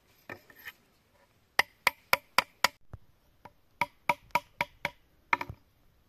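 Machete blade knocking against a hollow green bamboo tube: two quick runs of five sharp, ringing knocks at about four a second, then a short cluster of knocks near the end.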